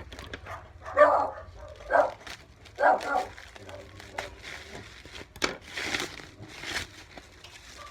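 A dog barking three times, about a second apart, followed by scattered clicks and rustling.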